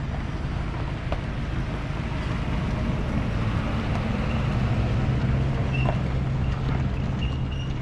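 Pickup truck engine running at low speed as the truck pulls slowly past towing a boat trailer, a steady low hum that swells a little around the middle.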